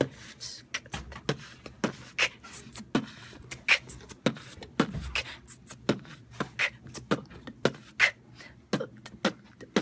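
A woman beatboxing: a quick, steady rhythm of mouth-made drum sounds, sharp clicks and hissing strokes with a few low thumps.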